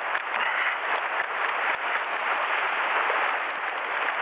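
Steady rushing noise of surf washing over rocks, with wind on the microphone.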